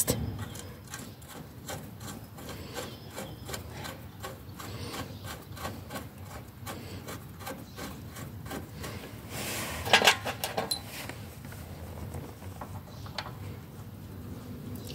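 Repeated short scraping and clicking of small cart parts being worked by hand, with a louder clatter of knocks about ten seconds in.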